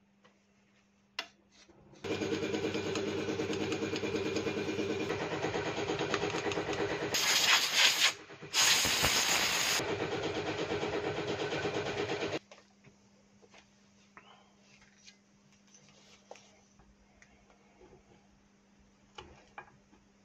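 A motor-driven machine runs steadily for about ten seconds, starting and cutting off abruptly, with two loud hissing bursts near the middle. Small clicks and handling sounds before and after.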